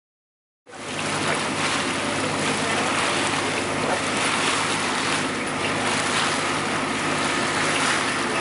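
Wind and water rushing past a sailboat under way, with wind buffeting the microphone and a steady low hum beneath. It cuts in suddenly just under a second in and then holds steady.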